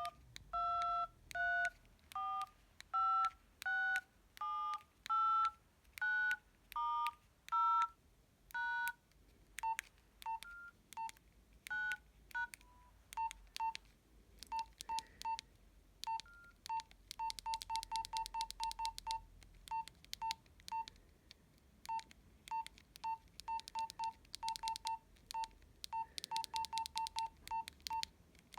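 Nokia 112 mobile phone keypad being pressed. For about the first nine seconds each key sounds a two-tone DTMF beep, about one a second, as a number is dialled. After that come short single-pitched key beeps with clicks, some in quick runs of several a second.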